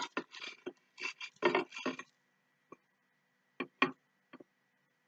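Metal spoon stirring thick fluffy slime in a glass bowl: a quick run of scrapes and knocks for about two seconds, then a few separate clinks against the glass.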